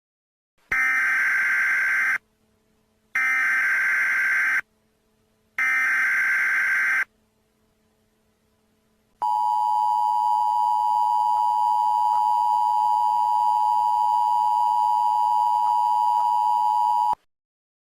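Emergency Alert System SAME header: three short bursts of buzzing digital data tones, each about a second and a half long. After a short pause comes the steady two-tone EAS attention signal, held for about eight seconds before it cuts off sharply.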